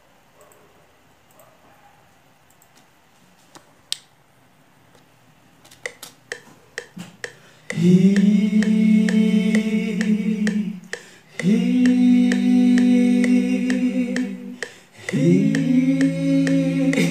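Male voices singing a cappella: three long held notes of steady pitch, each about three seconds, starting about eight seconds in. Finger snaps keep a steady beat under the singing and begin a little before it.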